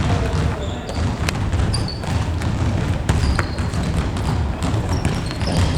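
Indoor futsal play echoing in a sports hall: scattered thuds of the ball being kicked and bounced, and short high squeaks, over a steady low rumble of the hall.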